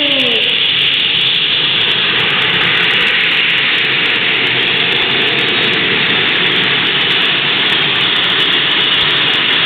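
Loud engine of a competition vehicle running flat out down a dirt arena track, a steady, unbroken noise.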